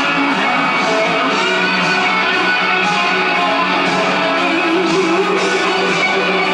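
Music played through a Phonola RV6338 Mercury valve radio's loudspeakers, received as a broadcast, at a steady, loud level.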